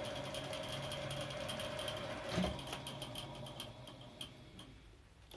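National NV-5120 cartridge video tape recorder running with its cover off: a steady mechanical whir with a fixed hum and fast, even ticking from the turning rollers and head drum, the rotation noise the owner has been trying to quiet. A knock comes about two and a half seconds in, then the running noise dies away as the deck stops, and a sharp click comes at the very end.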